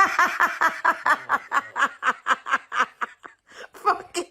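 A person laughing hard in a fast, even run of short pulses, about five a second, with a brief break about three seconds in.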